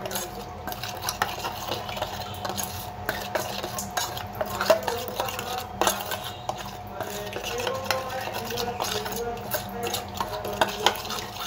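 A steel spoon stirring a wet spice paste of ground turmeric, chili, coriander and cumin in a small stainless-steel bowl, with many irregular clinks and scrapes of metal on metal. A steady faint hum runs underneath.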